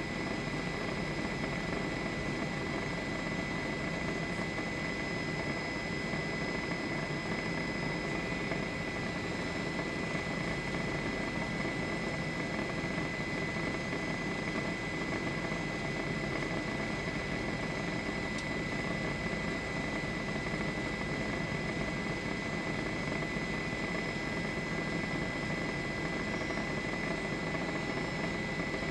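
News helicopter's engine and rotor drone, heard from inside the aircraft: a steady noise with a constant high tone over it.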